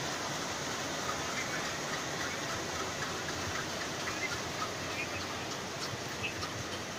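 Indian Railways diesel locomotive and its passenger coaches running on the line, a steady mechanical noise with no clear beat.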